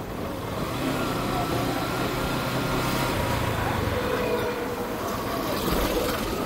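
Motorcycle engine running at a steady riding speed, with tyre and wind noise and other vehicles passing close by.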